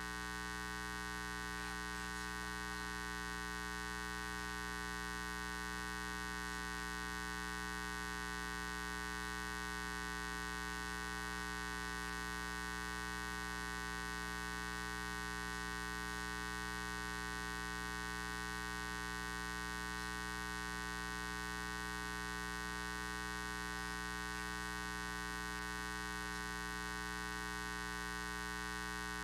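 Steady electrical mains hum, a buzz with many overtones that stays unchanged throughout.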